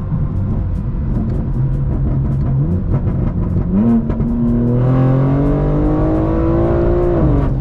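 BMW G82 M4's S58 twin-turbo straight-six on a stainless Valvetronic exhaust, heard from inside the cabin at freeway speed: a low, steady cruising note with tyre noise, then about four seconds in the revs climb steadily for about three seconds and drop off near the end as the throttle is lifted.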